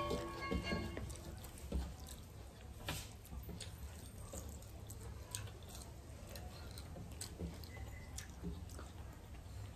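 Eating sounds: hands mixing rice and curry on metal plates, and wet chewing. They come as a faint scatter of irregular small clicks and smacks.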